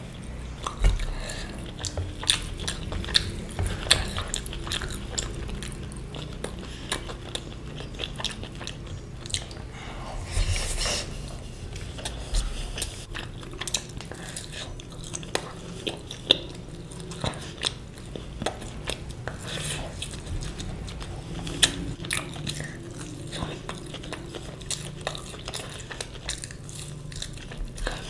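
Close-miked eating: irregular chewing and biting with sharp wet mouth clicks and now and then a louder crunch.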